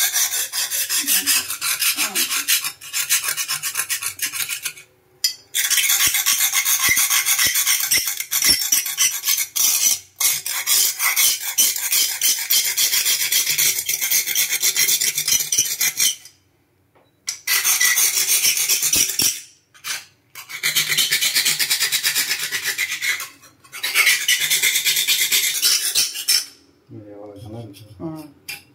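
Rapid, harsh scraping strokes of a hand-held tool along the crusted edge of a black kitchen countertop, scraping off built-up grime. The scraping comes in long runs broken by a few short pauses.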